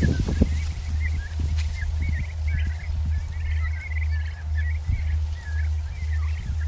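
Wind buffeting the phone's microphone as a steady, pulsing low rumble, with many short, high bird chirps scattered through it. A few brief knocks near the start sound like plant leaves brushing the phone.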